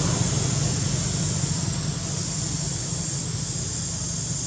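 Steady outdoor background noise: a low, even rumble under a constant high-pitched hiss.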